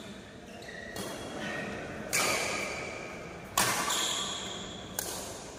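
Badminton shuttlecock struck back and forth by rackets: four sharp cracks about a second apart, each ringing on in the big indoor hall.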